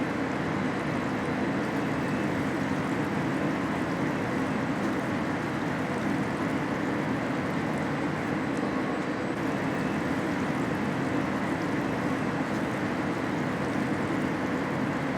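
Steady industrial din of a car-body paint shop: a constant, even rush of machinery and ventilation noise with no distinct knocks or tones.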